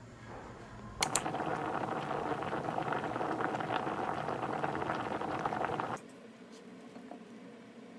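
Diced potatoes boiling hard in a stainless steel pot of water: a dense, busy bubbling. It starts suddenly with a sharp click about a second in and cuts off abruptly near the end.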